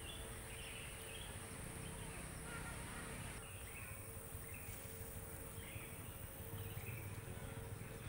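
Forest ambience: a steady high-pitched insect drone with short chirps scattered through it, over a low background rumble and a faint steady hum.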